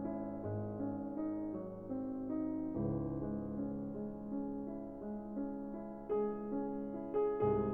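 Background music played on piano: a slow sequence of sustained notes and chords, with new chords struck about 3 seconds in and again near the end.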